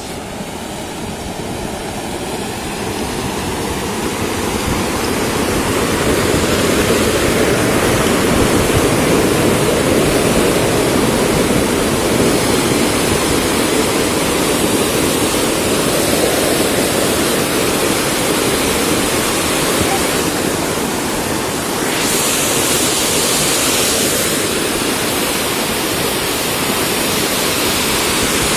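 Flash flood surging down a dry desert streambed: a steady rush of muddy water churning over stones, growing louder over the first several seconds as the flood front arrives, then holding.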